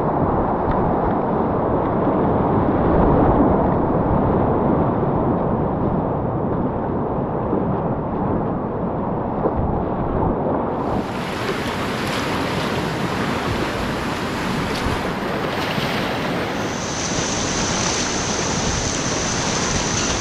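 Whitewater rapids on the Upper Tryweryn rushing and churning around a kayak, heard from boat level as a steady loud roar of water. A thin steady high tone joins in near the end.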